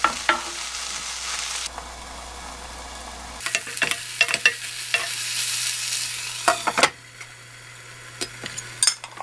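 Sliced onions in soy sauce and gochujang sizzling in a non-stick frying pan over low heat, stirred with a wooden spatula that scrapes and taps against the pan. Near the end a glass lid covers the pan and the sizzle goes quieter.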